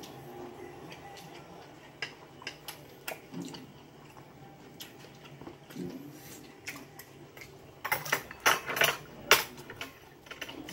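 Dishes and cutlery clinking at a dining table: scattered light clicks, then a quick run of louder clatters about eight to nine and a half seconds in.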